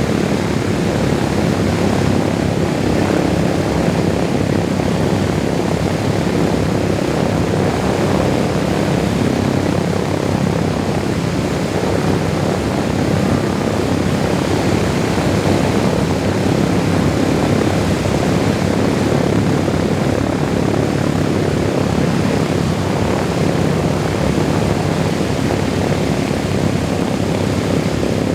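Four Wright R-1820 radial engines of a B-17G Flying Fortress running steadily with a deep, even drone and propeller noise.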